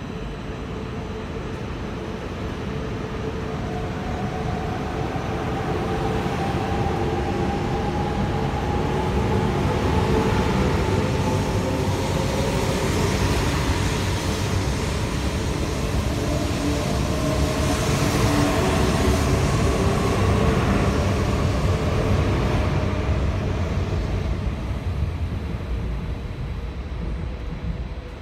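E4 series Max double-deck Shinkansen pulling away from a platform: the traction motors' whine rises in pitch in several overlapping steps as it accelerates, over a growing rumble and hiss of wheels and passing cars. The sound fades near the end as the last car leaves.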